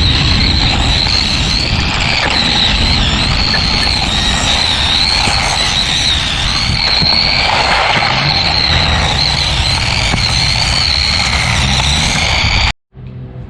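Small electric motor of an LDRC LD1802 1:18-scale drift RC car whining at speed, its high pitch wavering up and down as the car speeds up and slows, over heavy rumbling noise. It cuts off abruptly near the end.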